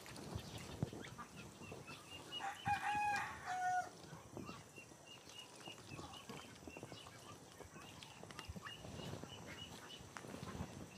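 A rooster crows once, a call of about a second and a half starting a couple of seconds in, which is the loudest sound. After it comes a steady run of small high chirps, about two a second.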